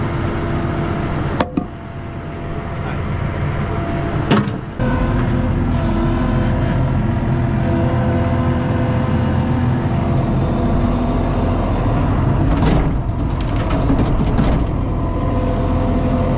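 ASV RT-40 compact track loader's diesel engine running steadily. There are two sharp knocks about a second and a half in and about four seconds in, and the engine is louder from about five seconds in, as heard from inside the cab.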